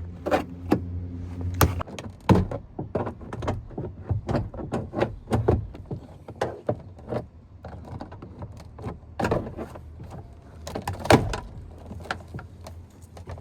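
Plastic interior door trim panel of a 2008 Chevy Silverado 1500 being pried and worked loose by hand, with many sharp clicks, knocks and rattles of plastic and retaining clips. A low hum stops about a second and a half in.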